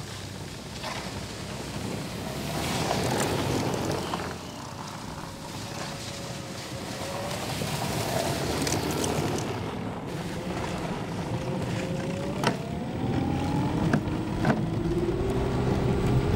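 Electric snowmobiles running along a snow trail: a steady rush of track and snow noise under a motor whine that wavers in pitch, the whine rising near the end as a sled speeds up.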